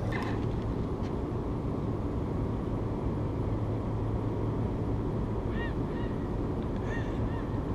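A few short bird calls, most of them in the second half, over a steady low hum and rumble.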